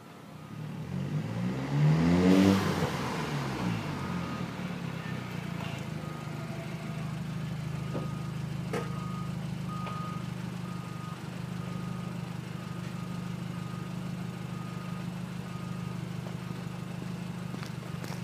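Skoda Octavia vRS mk2 engine through a non-resonated Milltek cat-back exhaust with the pre-cat deleted. It is blipped once about a second in, rising and falling over two seconds or so, then settles back to a steady idle.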